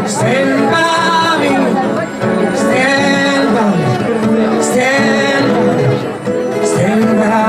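Live acoustic music: a man singing long, held, wordless notes that slide in pitch.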